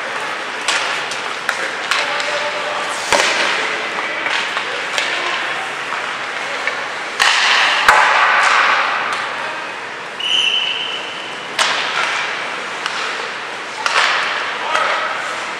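Ice hockey practice on a rink: skate blades scraping and hissing on the ice in repeated swells, with sharp clacks of sticks and pucks, two heavier knocks about 3 and 8 seconds in. A brief steady high tone sounds about ten seconds in.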